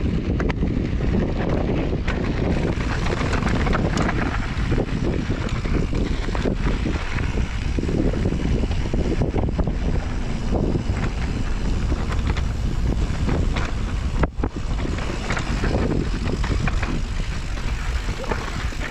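Wind buffeting the microphone while a mountain bike rolls over a rocky dirt trail, with many small knocks and rattles from the tyres and bike running through the steady rush.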